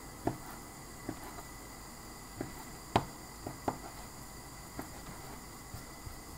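A kitchen knife dicing raw chicken breast into chunks on a plastic cutting board: irregular, sharp taps of the blade striking the board. The loudest tap comes about three seconds in.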